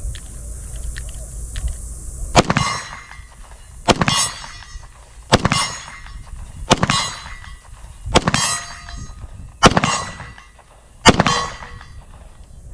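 Seven slow, evenly paced pistol shots from a 10 mm handgun, about one and a half seconds apart. After each one comes a brief metallic ring, typical of a steel target being hit.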